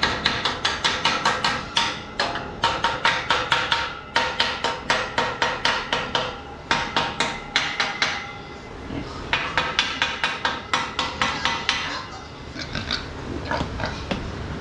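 Hammer striking steel tubing in quick runs of about five or six blows a second, each blow ringing with a metallic tone, with short pauses between runs.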